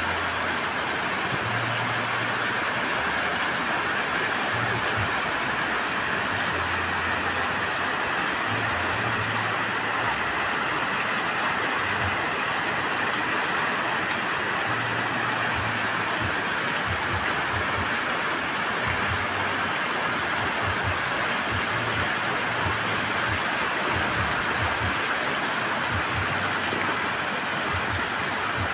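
Heavy rain pouring steadily, with a low wind rumble coming and going underneath.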